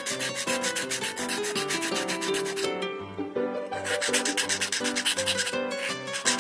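A metal hand file rasping back and forth on a small plastic slingshot frame in quick, dense strokes, stopping for about a second about three seconds in, then starting again. Soft background music plays underneath.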